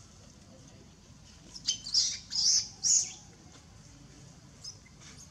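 Young macaque screaming: four shrill, high-pitched squeals in quick succession about two seconds in, then a brief faint squeak, typical of a baby monkey's distress cries as a bigger juvenile harasses it.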